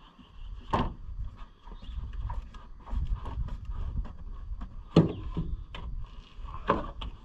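A few sharp knocks and clunks, with fainter clicks between them, from hands and tools working on hoses in a pickup's engine bay, over a low rumble of handling noise.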